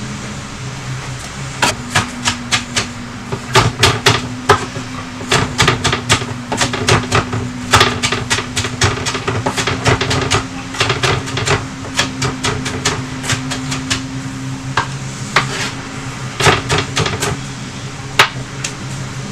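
Kitchen knife dicing an onion on a cutting board: quick, irregular knocks of the blade on the board, in flurries, starting about two seconds in.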